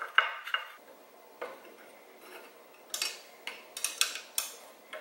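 Allen key and wrench clicking against a bolt and nut as the bolt is tightened into a metal bracket: a string of short sharp metal clicks, thickest about three to four and a half seconds in.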